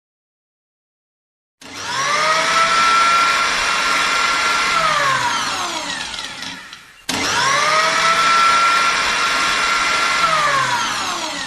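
Electric blender motor run twice. Each run spins up to a steady high whine, holds for a few seconds, then winds down in pitch as it is switched off. The second run starts abruptly about halfway through, just before the first has wound down.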